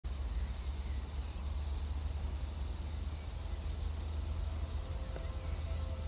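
Insects stridulating steadily at a high pitch over a steady low rumble. Soft music tones begin near the end.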